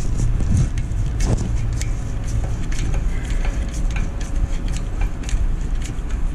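Scattered metallic clinks and scrapes as a tailpipe expander is handled and fitted into the end of a steel exhaust pipe, over a steady low hum.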